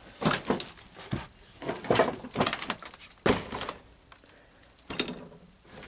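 Knocks, clatter and rustling of junk being handled and shifted about, a few sharp knocks among them.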